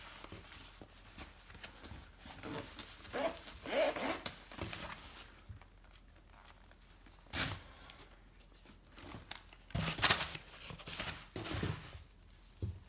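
Handling noise as a lens is packed into a padded nylon lens case: fabric rustling and zipping, then a few sharp knocks as the case is handled and set down, the loudest about ten seconds in.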